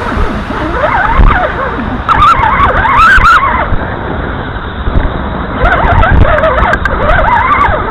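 Electric motors and gearboxes of RC trail crawlers whining as they drive, the pitch rising and falling with the throttle. Wind rumbles on the microphone.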